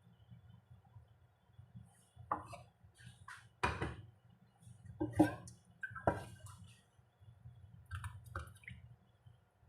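Kitchen utensils and dishes knocking and clinking: about six irregular knocks spread over several seconds, over a low steady hum.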